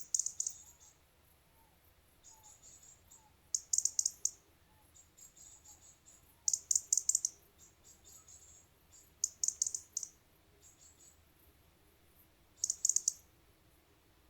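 Insect chirping: short bursts of rapid, high-pitched pulses about every three seconds, five bursts in all, with fainter chirps from another insect in between.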